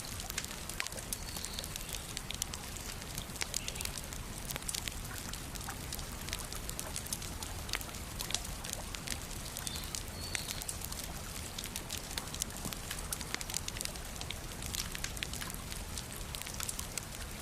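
Wood bonfire burning: dense, irregular crackles and pops over a steady low rush of the flames.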